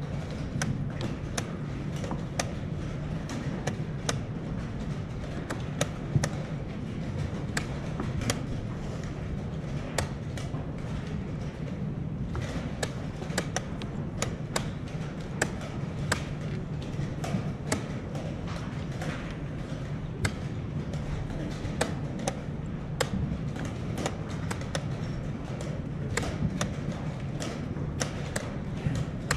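Wooden chess pieces set down hard on a wooden board and chess clock buttons slapped in quick, irregular succession during a blitz time scramble: a rapid run of sharp clicks and knocks over a steady low hum from the hall.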